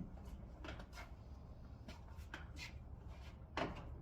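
A few light knocks and rubbing sounds over a low steady rumble, with a sharper knock about three and a half seconds in.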